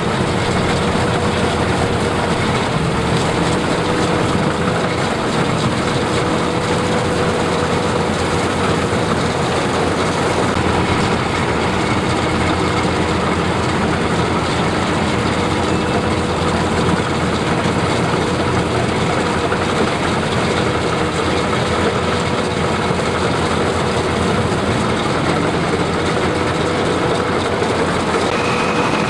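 Combine harvester running steadily in a rice paddy, a loud even machine noise with a faint steady whine over it.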